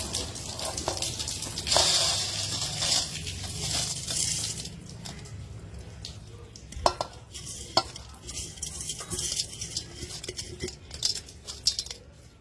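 Soaked raw rice and its water poured from a steel vessel into a perforated stainless steel colander, with a hissing rush of water draining through in the first few seconds. Then the steel vessels clink and knock and the wet rice is shifted about in the colander.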